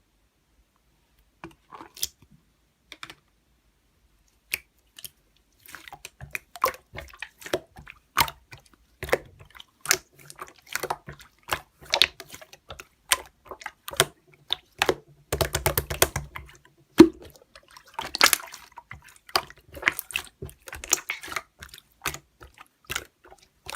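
Irregular light clicks and taps, sparse at first and coming much quicker after about six seconds, with a fast rattling run of clicks near the middle.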